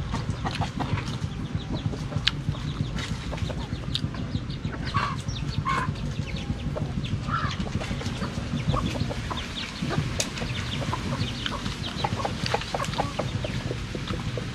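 Chickens clucking now and then, a few short calls, over close-up crunching and chewing of fried chicken wings, with a steady low hum underneath.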